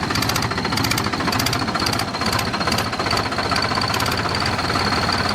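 Diesel tractor engine running with an exhaust turbo whistle fitted in its silencer, giving a steady high whistle over the engine's even beat.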